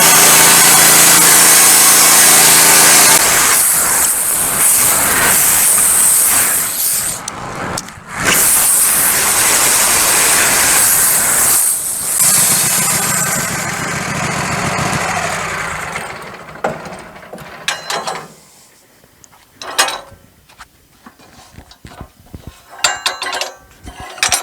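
Wood-Mizer LT15 Go band sawmill running, its engine driving the band blade through a pine log. About three seconds in the engine's steady pitch breaks off and the machine sound dies away over the following dozen seconds; scattered knocks and clicks follow near the end.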